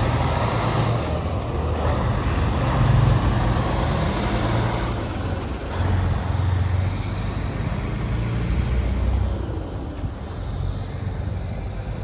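Diesel engine of a semi tractor with tall straight exhaust stacks, pulling away and driving off down the road. Its low exhaust note surges and eases in stretches and grows fainter near the end.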